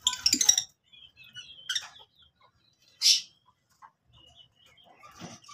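Lutino rosy-faced lovebirds calling: a loud shrill chatter right at the start, a shorter call just before two seconds, small high chirps in between, and one sharp harsh burst about three seconds in.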